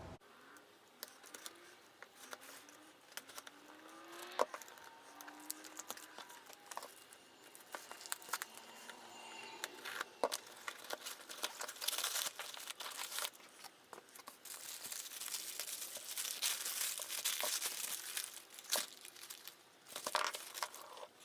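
A shipping package of ammunition being opened by hand: packaging crinkling and tearing, with scattered sharp clicks and knocks from handling. It comes in irregular spells and is busiest in the second half.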